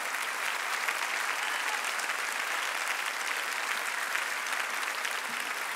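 A large audience applauding: many hands clapping together in a dense, even patter that holds steady.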